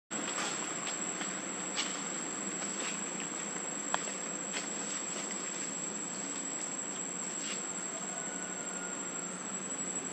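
Outdoor insect chorus: a steady, high-pitched drone, with light clicks and ticks scattered through it.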